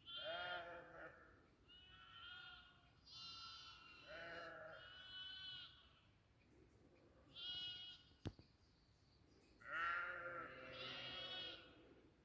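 Several sheep and goats bleating, one after another and sometimes overlapping, at different pitches, with a single sharp click about eight seconds in.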